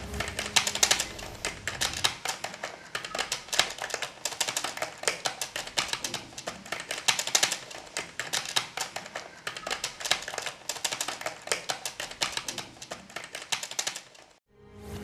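Typewriter sound effect: a rapid, uneven run of key clicks, which stops about fourteen seconds in. Music fades out under the clicks during the first couple of seconds.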